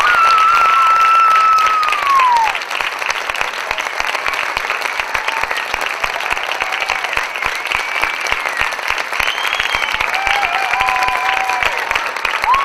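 Audience applauding steadily, with a few long high-pitched cheers over the clapping, one near the start and more near the end.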